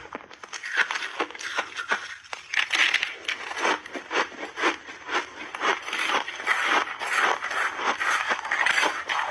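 Crunching and chewing of a mouthful of refrozen crushed mixed berries and ice: a quick, continuous run of crisp crunches.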